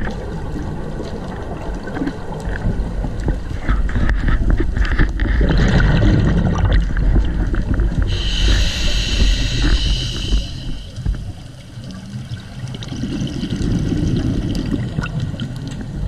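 Scuba breathing through a regulator, heard muffled inside an underwater camera housing: a low bubbling rush of exhaled air, then a hissing inhalation about eight seconds in, then bubbles again.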